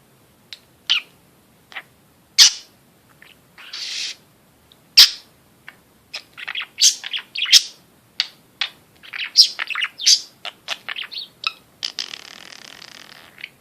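Pet budgerigar chirping and chattering in short, sharp calls. The calls are sparse at first and come thick and fast from about six seconds in, with a longer scratchy note near the end.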